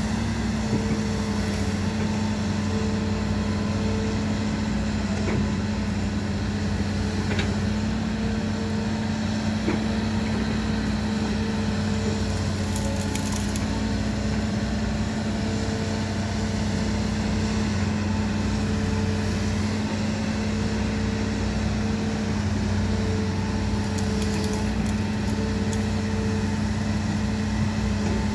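Hitachi Zaxis 210LCH excavator's Isuzu diesel engine running at a steady working speed as it digs, a constant drone.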